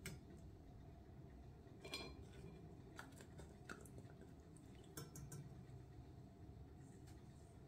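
Near silence with a few faint taps and soft drips as soaked ladyfinger biscuits are dipped into coffee sauce in a steel saucepan and set down in a glass baking dish.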